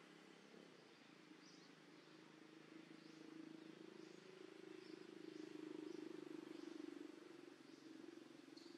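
Faint outdoor ambience: a steady low hum that grows louder through the middle and eases off again, with faint short high chirps repeating about once a second.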